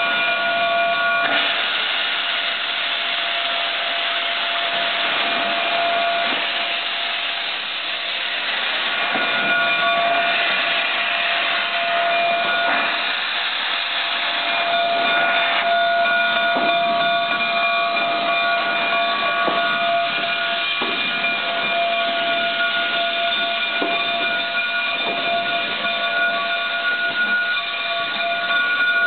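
Canadian Pacific 2317, a 4-6-2 steam locomotive, hissing loudly as it vents steam from its cylinder cocks, with a steady multi-tone whine underneath. The hiss swells about a second in and eases back about halfway through.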